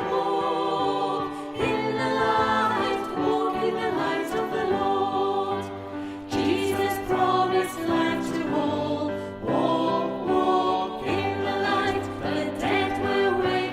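A hymn sung by a group of voices over held accompanying notes, phrase after phrase.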